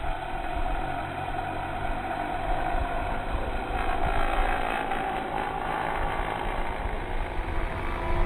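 Small quadcopter drone's propellers buzzing steadily as it lifts off the ground and climbs into a hover, the pitch of the whine wavering as the throttle changes.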